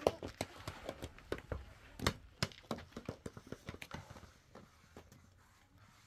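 A run of irregular light knocks and clicks, coming thick at first and thinning out after about three seconds.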